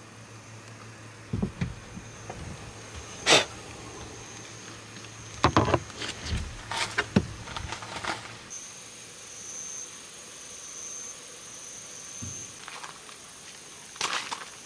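Night insects trilling in a steady high-pitched drone, louder after about eight seconds in. Before that, a low hum with several sharp knocks and clatters of things being handled and bumped inside a car; a few more knocks come near the end.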